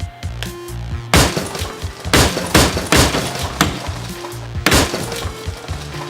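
A Zuru Smashers toy ball being smashed open against a hard surface: about six sharp cracking knocks over four seconds, the shell breaking apart.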